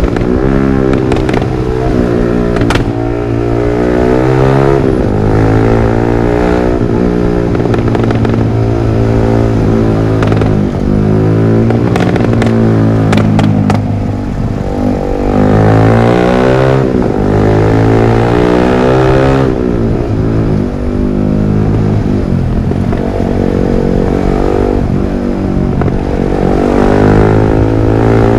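Yamaha R15 V3's single-cylinder engine through a Villan MP1 aftermarket exhaust, revved up and let fall back again and again. A few sharp pops and crackles come from the exhaust as the revs drop, mostly around the middle.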